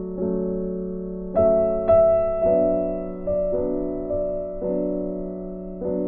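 Background music: a slow piano piece, a new note or chord struck every half second to a second and each left to fade.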